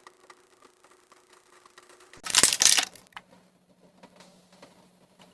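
Faint computer keyboard clicks over a low steady hum, with a brief loud burst of noise about two seconds in.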